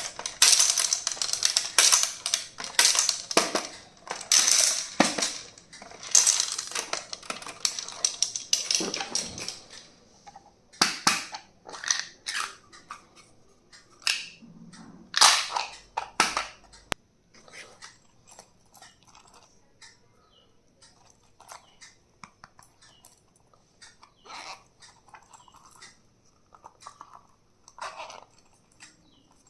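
Stationery items and their packaging being handled and unboxed: a dense run of clicks, taps and rustling for about the first ten seconds, then sparser, quieter clicks.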